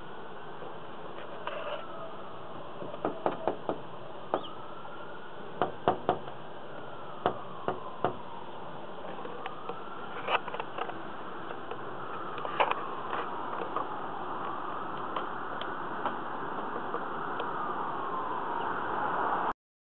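An insect buzzing close by, its pitch slowly rising and falling, with a scatter of sharp clicks and taps. The sound cuts off suddenly near the end.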